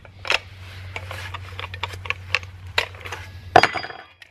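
Light metallic clicks and clinks of a grinder's flange nut, thin cutting disc and spindle being handled while the nut is tried on the arbor, with a sharper knock about three and a half seconds in. A low steady hum runs underneath and stops near the end.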